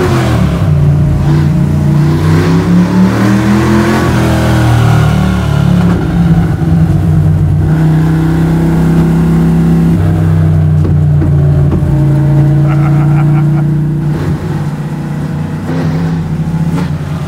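Small-block Chevy V8 of a square-body Chevy C10 drift truck, revving and rising in pitch over the first few seconds, then running at a steady pitch under light throttle, easing off near the end.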